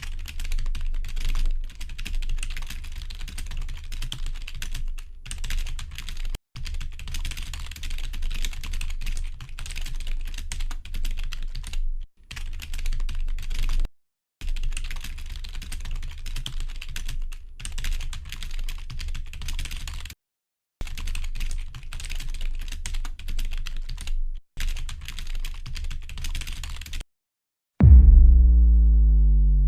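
Rapid keyboard typing in several runs of a few seconds each, broken by short silent gaps. Near the end comes a loud low boom that slides down in pitch as it fades.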